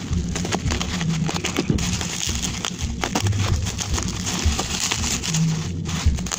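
Bubble wrap and plastic packaging crinkling and crackling in quick, irregular clicks as hands handle it and cut it open with a box cutter.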